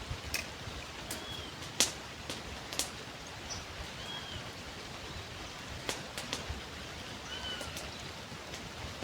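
Riverside outdoor ambience: a steady hiss, scattered sharp ticks, and a bird giving a short arching call note three times, a few seconds apart.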